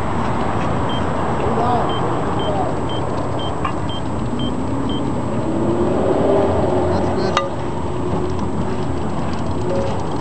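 Steady outdoor background noise with a faint, short high beep repeating about twice a second for a few seconds, and a single sharp crack about seven seconds in.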